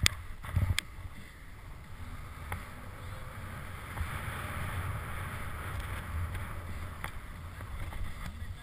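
Skis sliding through snow in a steady swish that swells around the middle, with wind rumbling on the helmet camera's microphone and a couple of sharp knocks near the start.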